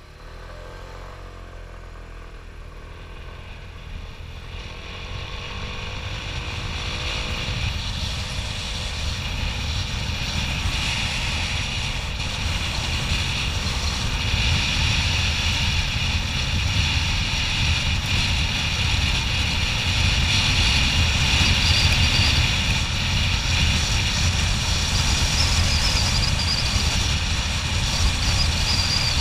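Motorbike pulling away from a standstill and accelerating, its engine note wavering up and down in the first several seconds. Wind rush and road noise then build steadily louder as speed rises, with wind on the bike-mounted microphone.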